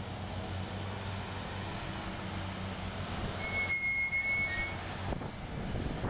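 Track renewal train machinery running with a steady low hum as it moves concrete sleepers. A brief high-pitched squeal about four seconds in lasts about a second.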